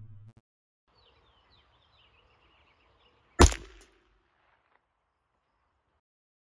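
A single sharp gunshot about three and a half seconds in, over faint bird chirps. A low humming tone cuts off within the first half-second.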